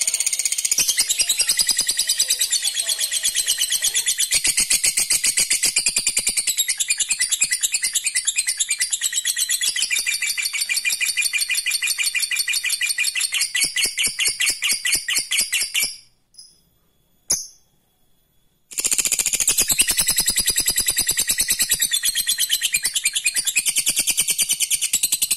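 Lovebird giving its long 'ngekek' song: a rapid, high-pitched chattering trill. It breaks off for about three seconds past the middle, with two short chirps in the gap, then starts again.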